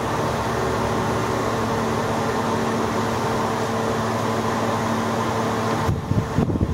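A steady mechanical hum with several held tones, from a running machine. About six seconds in it stops and gives way to uneven low rumbling.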